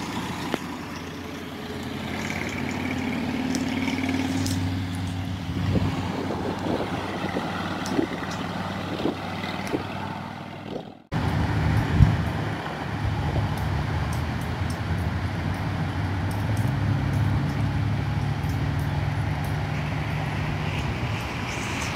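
Car engines running with traffic noise, a steady low drone. It breaks off abruptly about halfway through, and a single sharp knock follows a second later.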